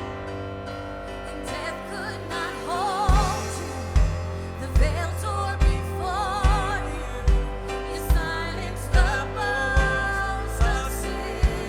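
Live worship band playing a slow song: sustained keyboards under a sung melody with vibrato, and about three seconds in the bass guitar and kick drum come in on a steady beat.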